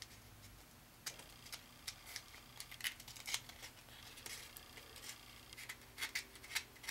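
A small piece of sandpaper rubbed against the end of an enamelled copper magnet-wire lead, making faint, short, scratchy rasps in irregular clusters as the enamel coating is sanded off to bare the copper.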